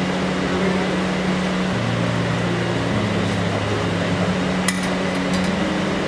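Steady rushing hum of commercial kitchen ventilation, with a soft low background-music bass line stepping to a new note every second or so. A single sharp click sounds a little before the end.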